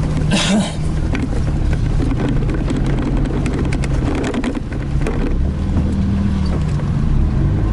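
Toyota Hilux engine running under load as the truck climbs a rough off-road slope, heard from inside the cab, with scattered knocks and rattles from the truck bouncing over the ground. The engine pitch rises about five or six seconds in, then settles.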